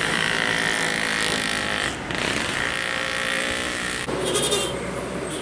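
A bus's diesel engine running as it passes along the road, with tyre and traffic noise. The sound changes abruptly about four seconds in, followed by a short hiss.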